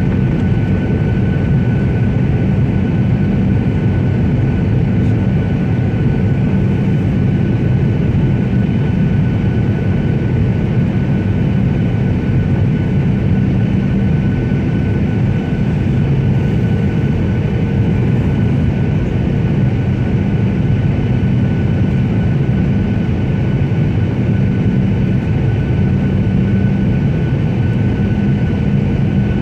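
Steady cabin noise of an airliner, heard from inside the cabin: a constant low rumble of engines and airflow with a thin steady whine above it.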